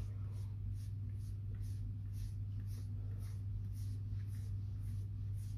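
Pastry brush stroking beaten egg onto a sheet of puff pastry: soft, even swishes about two to three a second, over a steady low hum.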